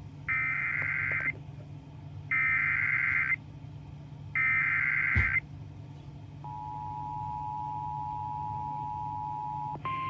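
Emergency Alert System header: three one-second bursts of SAME digital data, a harsh warbling buzz, about two seconds apart. They are followed by the steady two-tone EAS attention signal, held for about three and a half seconds, announcing a severe thunderstorm warning. A low hum runs underneath.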